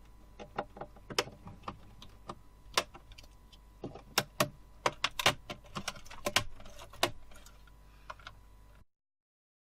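Plastic trim strip above a Toshiba Satellite L650 laptop's keyboard being pried off with a pry tool, its clips clicking and snapping loose in a run of irregular sharp clicks, the loudest in the middle.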